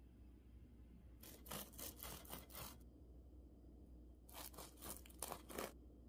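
Serrated knife sawing through the crisp, flaky crust of a baked pain au chocolat, crackling and crunching in two bursts of strokes.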